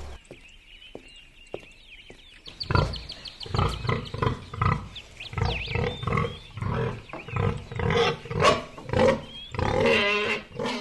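Domestic pig grunting over and over: a string of short grunts, a few a second, starting about three seconds in, with a longer call near the end. Small birds chirp faintly in the background.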